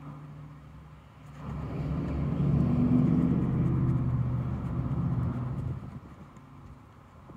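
A motor vehicle passing close by: a low engine rumble that swells up about a second and a half in, holds for a few seconds and fades away near the end.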